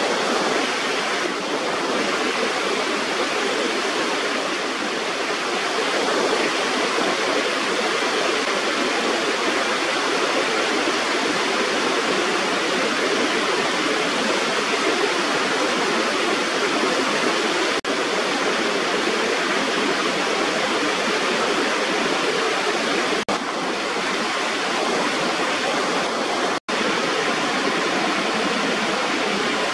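Water pouring over a small rubber weir, a steady even rush of a small waterfall. It is broken only by a split-second gap about three-quarters of the way through.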